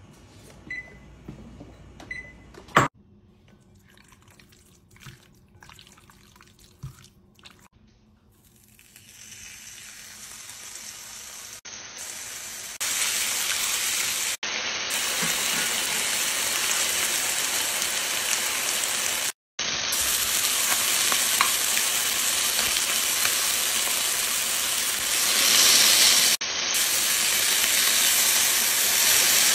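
Chicken breast pieces searing in a hot frying pan: a steady sizzling hiss that builds up about ten seconds in and stays strong to the end. Before it, a quieter stretch with a few light clicks and two short beeps.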